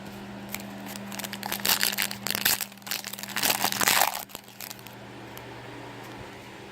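Foil wrapper of a Topps Chrome baseball card pack crinkling as it is torn open and handled, for about three seconds, over a steady low hum.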